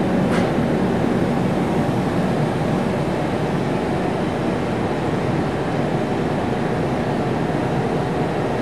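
Steady rushing rumble of cleanroom ventilation and tool exhaust airflow, with a faint click about a third of a second in.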